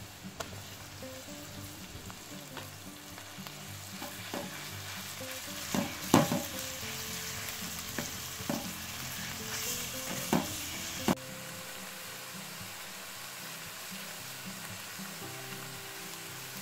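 Minced meat sizzling in hot oil in an aluminium pan as it is tipped in and stirred with a wooden spoon, with several sharp knocks of the spoon against the pan around the middle. The sizzle quietens abruptly about two-thirds of the way through, under soft background music.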